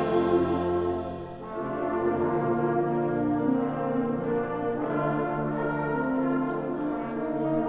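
Middle school concert band playing sustained, brass-heavy chords with horns and trombones prominent; the sound drops away briefly a little over a second in, then the full band comes back in.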